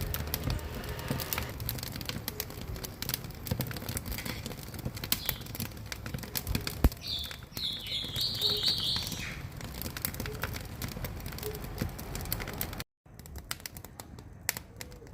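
Wood fire crackling and snapping in the firebox of a wood-burning cook stove, with many quick sharp pops. About halfway through, a bird chirps a quick series of high notes over the crackle.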